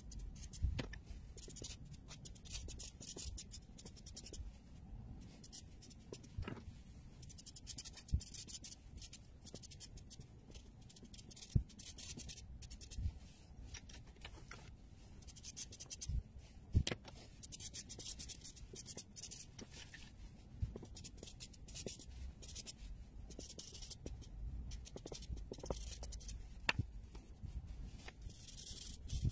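Marker nib rubbing and scratching across paper in repeated colouring strokes, with a few sharp taps scattered through, the loudest about two-thirds of the way in.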